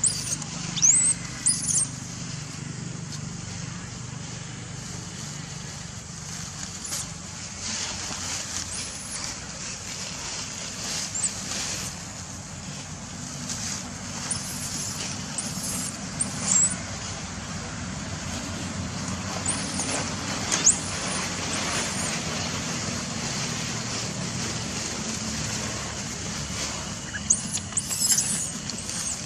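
Scattered short, high-pitched macaque squeals, some sliding sharply down in pitch, over a steady low hum.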